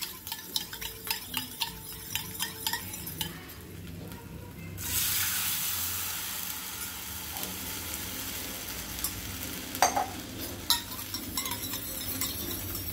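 A steel spoon clinks over and over against a steel bowl as a cornflour slurry is stirred. About five seconds in, water poured into the hot oil, garlic, ginger and chilli in a small tadka pan sets off a sudden loud sizzle, which eases into a steady sizzling and bubbling, with a few more clinks later on.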